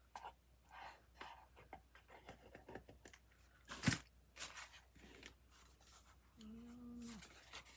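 Scissors snipping through paper in short, scattered cuts, with paper rustling between them and one sharper click about four seconds in.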